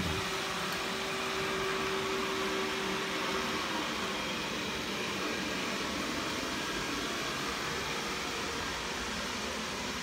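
First-generation Xiaomi Mi robot vacuum running: a steady whirring fan noise as it drives about on its laser-mapping pass before cleaning, with a faint steady hum that fades out after about three and a half seconds.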